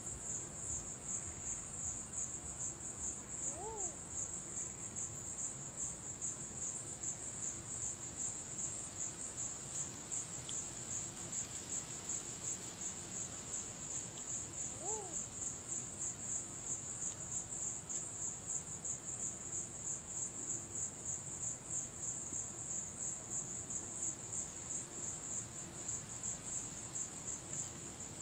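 Steady, high-pitched, fast-pulsing chirring of night insects, with two short rising-and-falling call notes about four and fifteen seconds in.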